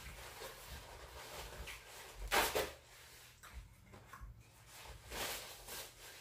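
A person eating close to the microphone: irregular chewing and food-handling noises, with a louder burst about two and a half seconds in and another about five seconds in.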